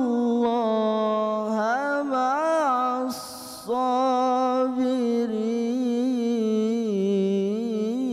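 A young man's voice in melodic Quran recitation, holding long notes that waver and turn in ornaments. Just past three seconds in there is a short break for a quick breath, then the chant goes on.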